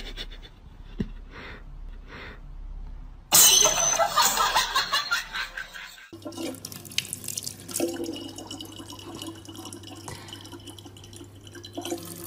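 A kitchen tap running a thin stream of water that falls into an open plastic water bottle, steady from about halfway through. Before it there is a loud rushing noise of unknown source for a couple of seconds, and a few faint breathy puffs at the start.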